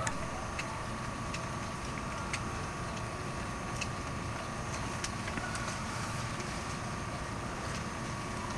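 Steady low background rumble of outdoor ambience with a faint steady hum and a few soft ticks.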